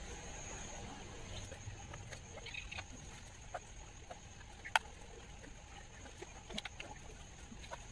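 Faint, scattered light taps and scrapes of a thin applicator stick dipping into a small glue pot and dabbing glue around the speaker cone's voice-coil former, with one sharper tap about five seconds in. A faint steady high whine runs underneath.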